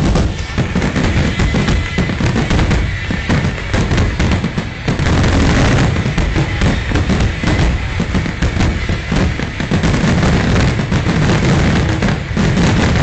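Fireworks finale: many shells bursting in rapid, overlapping succession, a continuous barrage of bangs and crackle with no pauses.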